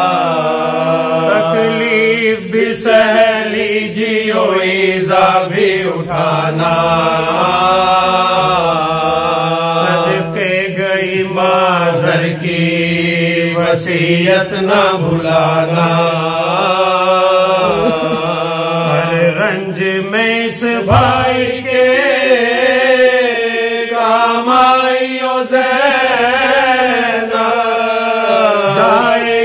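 Men's unaccompanied voices chanting a marsiya, an Urdu elegy, in long, drawn-out melodic lines.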